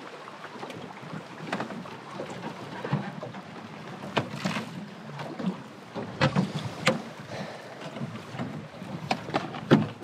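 Irregular knocks and clunks of gear being handled in a small fishing boat on the water, over a steady rushing background; the sharpest knocks come past the middle and near the end.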